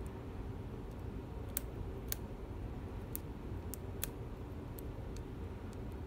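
Small, sharp metallic clicks of a hook pick working the pin stacks of a Dorma 3003 7-pin lock cylinder held under tension. These are irregular single ticks, roughly one or two a second, the small clicks a picker listens for as pins set.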